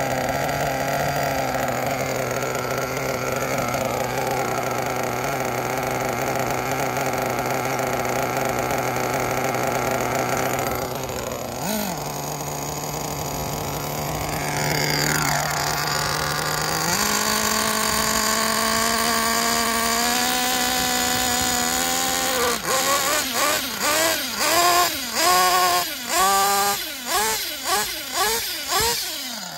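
Kyosho Inferno NEO ST 3.0's glow-fuel nitro engine running steadily, its pitch stepping up twice, then revved in a quick series of about ten throttle blips, each rising and falling in pitch.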